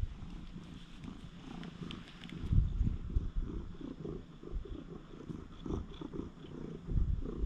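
Domestic cat purring close to the microphone, a quick rhythmic low rumble, with a couple of louder low bumps about two and a half seconds in and near the end.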